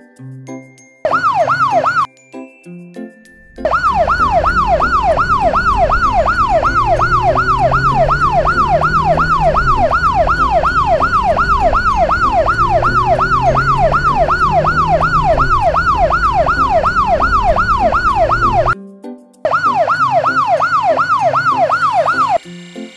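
Cartoon police siren in a fast yelp, its pitch rising and falling about two and a half times a second over a low rumble. It cuts out twice briefly and stops near the end.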